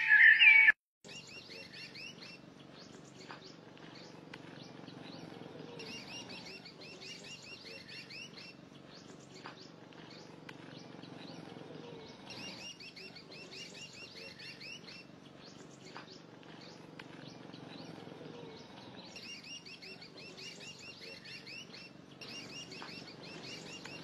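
Birds chirping and twittering in repeated bursts of high, quick notes. In the first second, music cuts off suddenly before the chirping begins.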